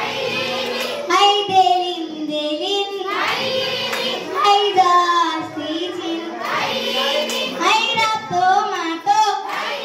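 Children singing a Nepali Bhailo song for Tihar, a girl leading it into a microphone.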